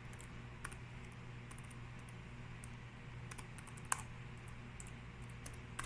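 Faint, scattered keystrokes on a laptop keyboard, with one sharper key press about four seconds in, over a low steady hum.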